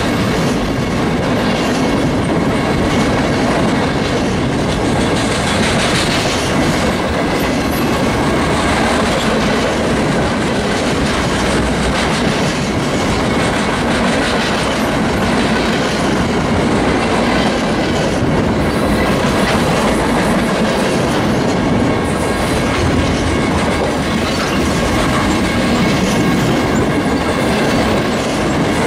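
Loaded freight flatcars rolling steadily past close by: a continuous rumble and clatter of steel wheels on rail, with knocks over the rail joints now and then and a faint steady high ringing tone.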